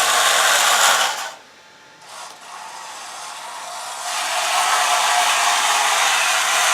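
Electric motors driving RC tank dual-ratio gearboxes, whose gears have been lapped with silicon-carbide compound, running with a steady whir. It stops about a second and a half in, comes back quieter, and rises to full speed again about four seconds in.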